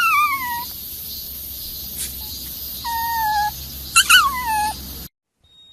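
A young animal's high, whining cries, three of them: the first and last slide down in pitch, the middle one holds steady; the sound cuts off near the end.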